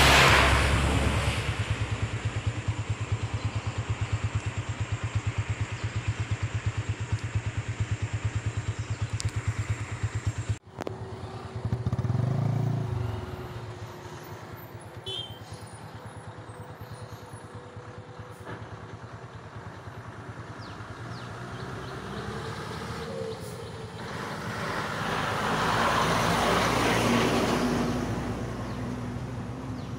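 Road vehicle engines. An engine runs with a steady rhythmic throb, then a short swell of traffic comes after a sudden cut. Near the end a louder vehicle, likely the approaching motorcycle, rises and fades as it goes past.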